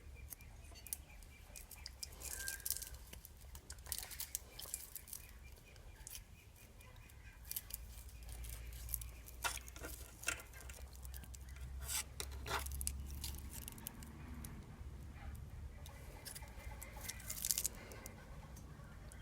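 Irregular light clicks and clinks of tools and small engine parts being handled during a scooter engine repair, over a low hum that swells in the middle.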